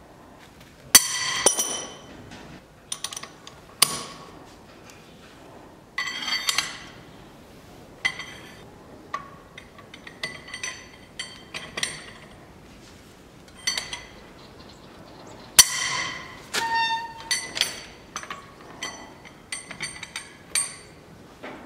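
Hand tools and steel brake caliper parts clinking and knocking against each other in a string of irregular sharp clanks that ring briefly. The loudest come about a second in and again about two-thirds of the way through.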